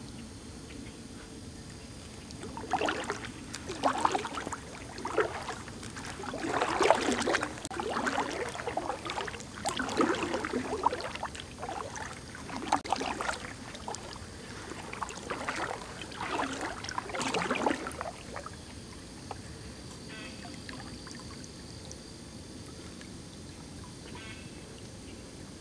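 Kayak paddle strokes dipping and splashing in calm river water, about one a second for some fifteen seconds, then stopping as the kayak glides on.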